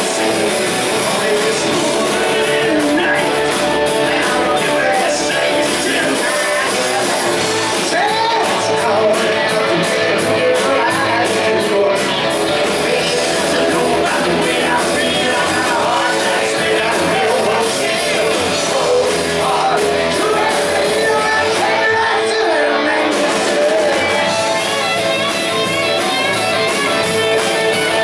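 Rock band playing live: electric guitars and drums with a male lead vocal singing over them.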